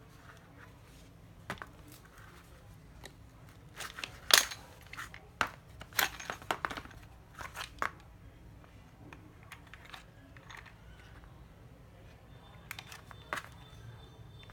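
Scattered plastic clicks, knocks and rattles from handling a used Makita 9.6 V cordless screwdriver, most of them bunched about four to eight seconds in, with one more near the end.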